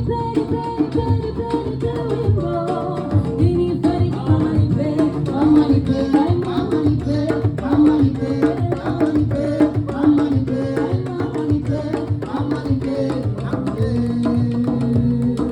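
Live band playing during a sound check: hand drums and other percussion keep a busy, steady beat under a wavering melody line.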